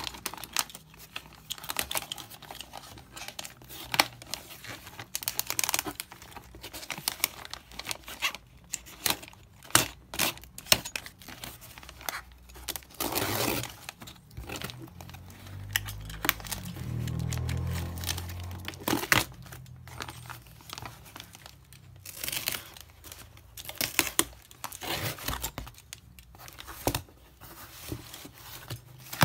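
Thick black plastic mailer bag being crinkled, slit with a utility knife and torn off a cardboard box, with irregular rustling, tearing and sharp handling clicks.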